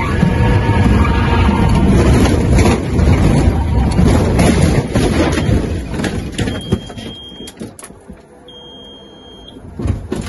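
Light single-engine plane's piston engine and propeller running loud inside the cockpit while it rolls and bounces off the runway through grass, with repeated knocks and thuds. About seven seconds in the engine rumble dies away and a high steady warning tone sounds twice, about a second each, before more thuds near the end.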